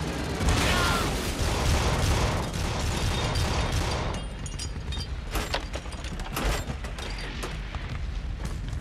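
War-film battle sound effects: a blast's heavy rumble for the first few seconds, then gunfire and impacts in irregular bursts of sharp cracks.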